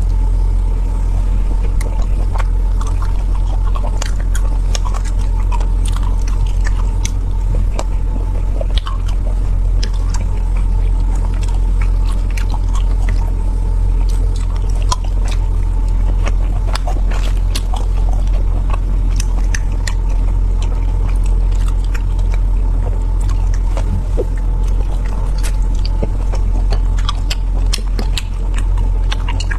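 A person chewing and biting food close to the microphone: many short, irregular clicks and smacks. A steady low hum and a faint steady whine run underneath.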